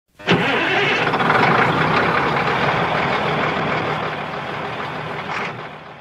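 A motor vehicle engine starting with a sudden jolt and running loudly, then fading out near the end.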